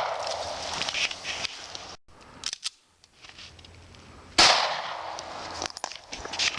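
A pistol shot about four seconds in, its report echoing and dying away, with the tail of an earlier shot fading at the start. The sound cuts out briefly about two seconds in.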